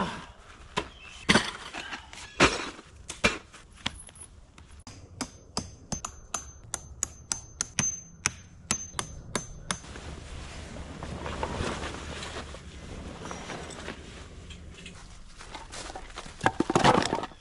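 Tent-pitching sounds: scattered knocks, then a quick, even run of hammer strikes on metal tent stakes, about three a second, each with a high ring. Near the end comes a loud cluster of clunks as split firewood is handled.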